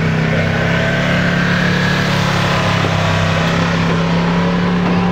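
Diesel pickup truck engine running loud and steady at raised revs, with a faint whine that rises over the first couple of seconds.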